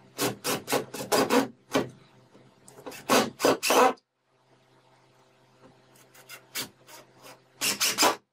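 Cordless drill-driver sinking wood screws into plywood, run in quick short bursts of the trigger: a run of pulses in the first two seconds, another around three seconds in, and a last loud run near the end.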